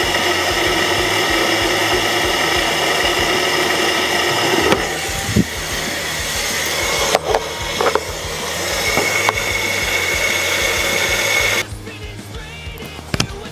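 A small electric motor buzzing steadily, with a few short clicks partway through; the buzz drops away sharply near the end.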